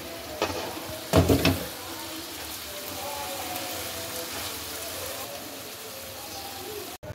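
Minced meat (keema) frying in oil in a pan, a steady sizzle, as a wooden spatula stirs and scrapes it. A brief loud clatter comes about a second in.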